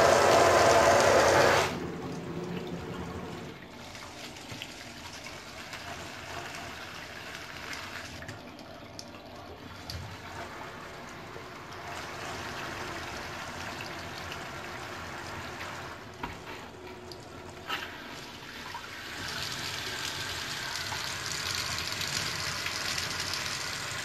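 Water spraying from a GROHE Rainshower Classic hand shower onto a tiled bath, its sound changing as the four-setting spray ring is turned. It is loud for the first second or two, then drops to a softer hiss with a few clicks in the middle. It turns louder and hissier again for the last few seconds.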